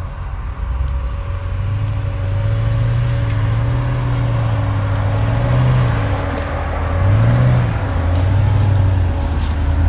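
Land Rover Discovery 2 engine running under load off-road, its revs swelling and dipping several times, with a couple of clearer rev rises in the second half. A few light ticks sound over it.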